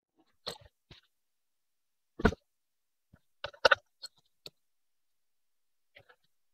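Scattered sharp clicks and light knocks from a screwdriver and a hose clamp being worked onto the end of a silicone hose. The loudest knock comes about two seconds in, and a quick cluster of clicks follows a little over a second later.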